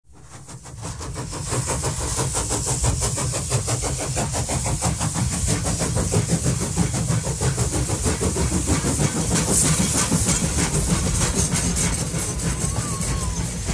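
Electric tram running along its track: a steady rumble of motors and wheels with fast rattling throughout, fading in over the first second or two.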